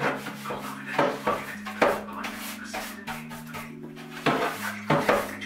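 Background music with held low notes that change every second or so, and a few sharp hits scattered through it.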